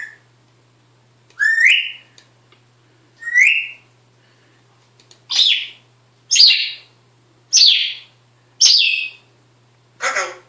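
African grey parrot making a series of short whistled calls, about one every second or two. The first two glide upward in pitch; the later ones are harsher and higher and come in quicker succession.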